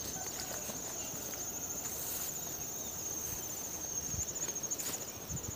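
Insects give a steady, high, pulsing trill. Footsteps on the trail come in as soft thumps about twice a second near the end.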